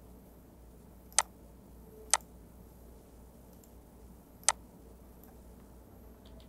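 Three sharp computer mouse clicks, the second about a second after the first and the third about two and a half seconds later, over a faint steady hiss.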